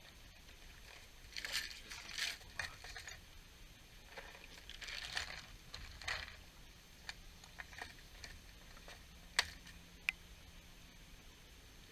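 Fishing rod and tackle being handled close to the microphone: scraping and rustling in two bouts, then a series of sharp clicks, the loudest two near the end.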